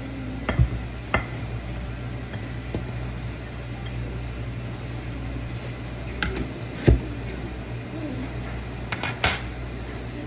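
Plates, containers and utensils being handled on a kitchen counter while food is served: a handful of separate clinks and knocks, the loudest about seven seconds in and a quick cluster near the end, over a steady low hum.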